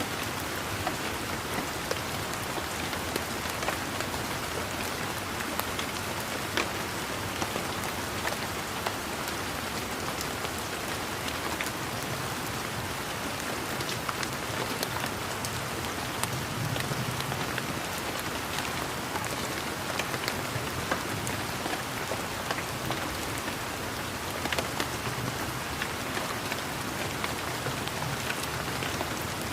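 Steady rain falling, an even hiss dotted with many sharp taps of individual drops hitting surfaces.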